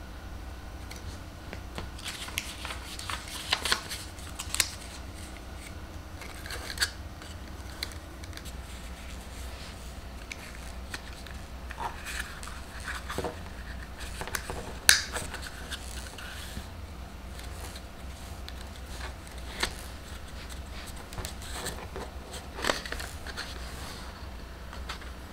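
Rolled paper banknotes slid into clear plastic tubes and set down in a row: scattered light clicks, taps and rustles of plastic and paper, with one sharper click about fifteen seconds in, over a steady low hum.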